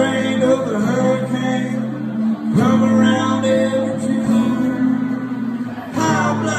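Live instrumental passage: a strummed acoustic guitar with a slide guitar played flat on the lap. The slide notes glide up into held tones, one about two and a half seconds in.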